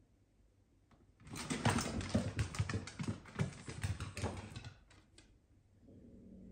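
Small pets' claws clicking and scrabbling on a wooden floor, a rapid, dense run of clicks and scuffles lasting about three seconds.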